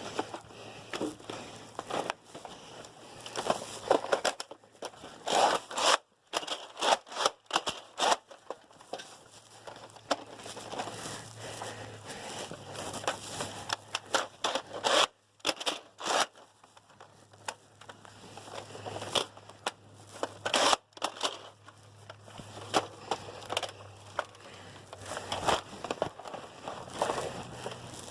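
Irregular rustling, crunching and scraping noises, with many short loud ones scattered throughout, over a faint steady low hum.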